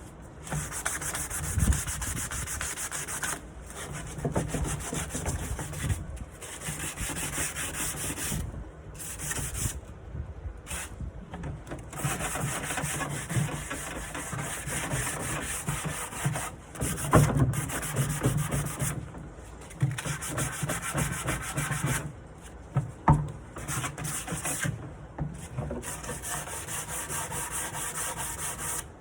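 Sandpaper rubbing on the wood of a nightstand in stretches of a few seconds with short pauses between, sanding the surface before it is primed.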